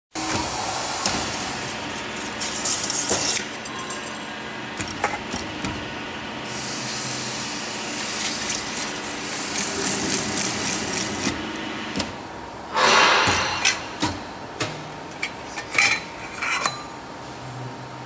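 Stainless steel lid edge-trimming and crimping machine running with a steady motor drone, its rollers making stretches of high scraping hiss as they cut the lid's rim. A louder rasp comes about thirteen seconds in, then several sharp metallic knocks.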